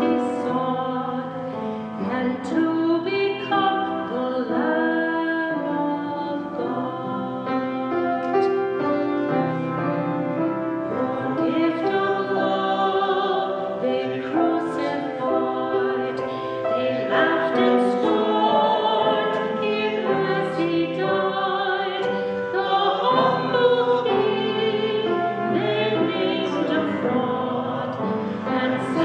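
A woman singing a slow song with piano accompaniment, her held notes wavering with vibrato.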